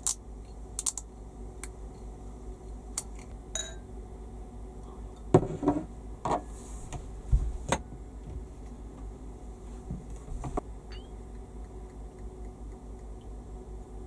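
Scattered clicks and short clatters of small hard objects being handled, busiest in the middle, over a steady low rumble.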